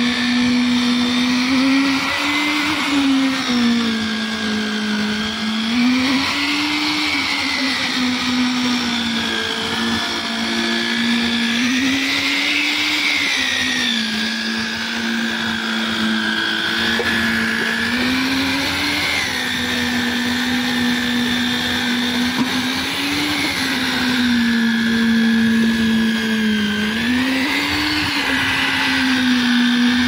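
Electric concrete needle (poker) vibrator running, its handheld motor whining steadily through the flexible shaft. The pitch rises briefly and falls back every four to six seconds as the poker is worked through the wet slab concrete.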